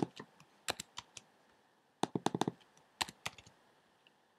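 Computer keyboard keystrokes: a few keys at a time in three short groups, typing new values into number fields.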